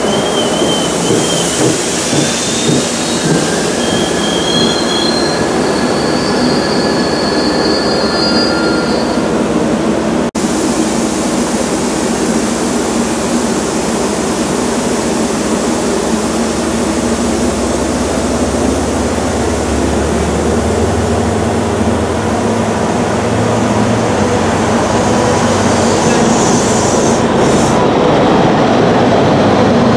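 CapeFLYER passenger train coaches rolling along a station platform, the wheels squealing in wavering high tones for the first several seconds. After a sudden break about ten seconds in, the train runs with a steady rumble, and a deeper drone builds around the middle.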